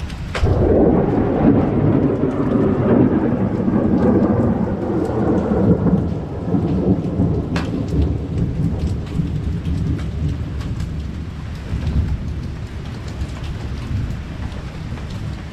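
Long rolling thunder rumble that swells about half a second in and fades away after about six seconds, over steady rain with scattered sharp ticks of small hail starting to fall.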